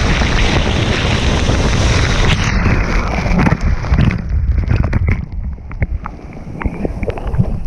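Loud rushing water and wind buffeting the microphone on a water-park ride. About halfway through it turns dull and muffled, with scattered knocks and splashes.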